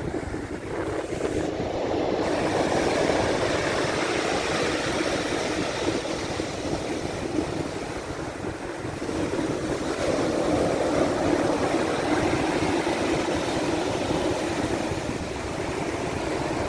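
Black Sea surf: waves rushing in and washing back in a steady roar that swells a couple of seconds in and again about ten seconds in.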